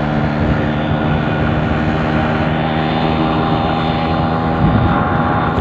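Yamaha RX135's two-stroke single-cylinder engine running at a steady speed under way. Near the end the steady engine note breaks up and wavers.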